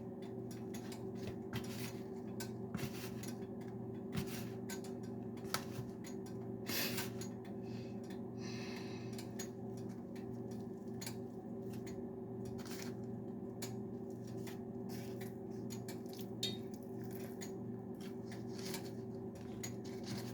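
Scattered light clicks, taps and clinks of kitchen handling as pieces of fish are dredged in a flour and cornmeal coating, over a steady low hum.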